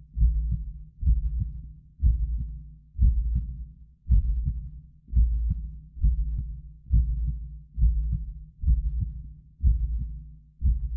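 Heartbeat sound effect: deep, regular thumps at about one beat a second, each striking sharply and fading before the next.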